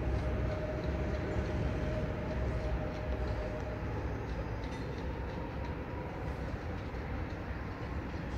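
ED161 electric multiple unit (PESA Dart) moving away: a steady rumble of its running gear that slowly fades as it recedes, with a thin steady whine that dies away about halfway through.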